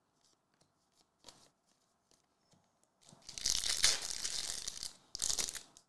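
A hockey card pack wrapper being torn open: a few faint card clicks, then a long ripping, crinkling tear about three seconds in and a second, shorter rip just before the end.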